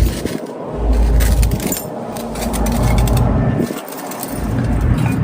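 Wind gusting against the microphone in deep rumbles that swell and fall away about four times, with light clinks and crackles as a fire is being lit in a small camp stove.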